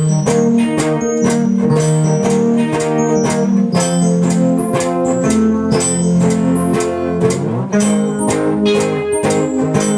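Music led by plucked guitar notes at a steady pulse of about four a second, over held lower notes.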